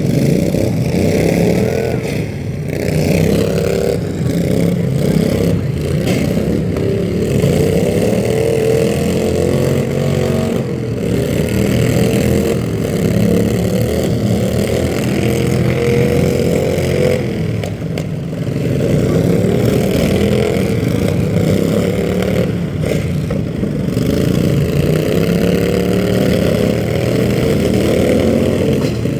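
Motor vehicle engines running and revving, their pitch rising and falling repeatedly.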